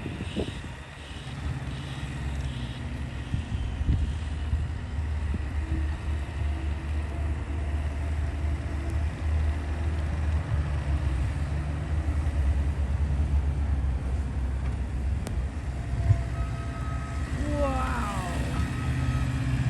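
Heavy snowplow trucks running on the street, a steady low engine rumble, with a few short gliding tones near the end.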